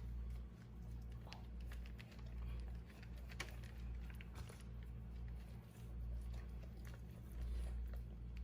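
Hands handling a raw whole chicken and whole vegetables, pushing the vegetables into the bird: scattered small clicks and soft handling noises over a steady low hum.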